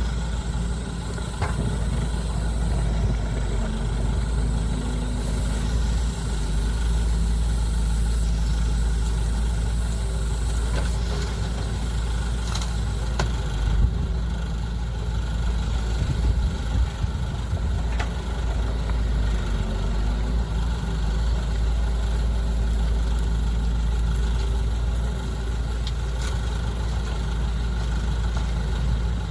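Diesel engines of excavators and trucks running steadily, mostly low-pitched, with a few faint clicks.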